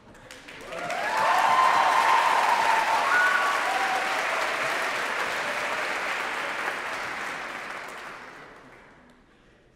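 Audience applauding: the clapping swells up about a second in, holds, and dies away near the end.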